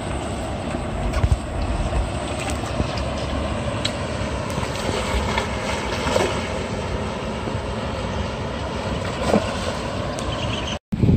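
Steady rushing noise with wind buffeting the microphone, over water spilling from a small weir, and a few brief splashes as a hooked rohu thrashes at the surface.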